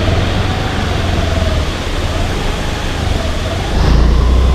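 Motorcycle running along the road with wind rushing on the microphone, the engine's pitch wavering up and down. The low rumble grows louder about four seconds in.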